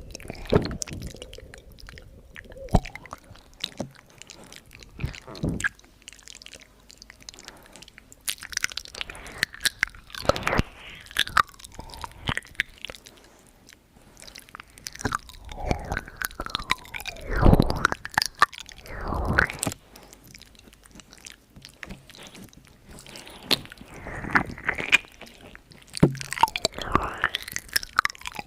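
ASMR mouth sounds: irregular clusters of wet clicks and pops, with short pauses between them.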